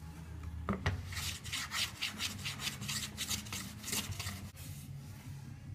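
Quick back-and-forth scrubbing strokes of a small hand-held block over a planed pine board, about four or five strokes a second for a few seconds, over a low steady hum.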